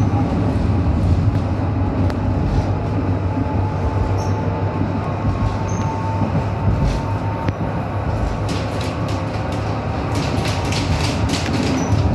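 Tram running along its route, heard from inside the passenger car: a steady rumble of wheels on rails and the car body. A faint whine comes in the middle, and a run of rattling clicks comes in the last few seconds.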